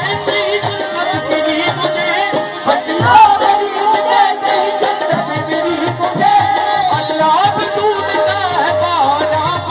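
Music with a steady hand-drum beat under a melody whose pitch bends and wavers.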